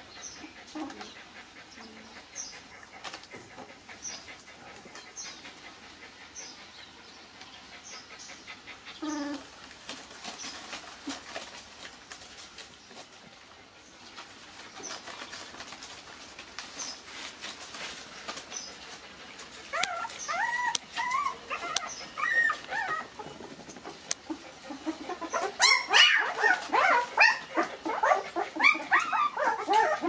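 Young puppies whimpering in short, high, wavering calls. The calls are sparse and faint at first, then come thick and overlapping and much louder in the last third.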